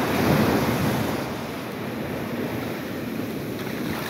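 Small sea waves breaking and washing up a sandy shore, a little louder in the first second, then a steady wash.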